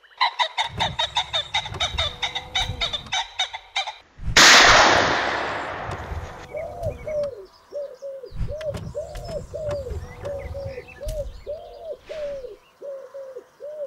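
Bird calls. First a rapid rattling call for about four seconds, then a loud noisy burst that fades over a couple of seconds. After that comes a long string of short rising-and-falling calls over a low rumble.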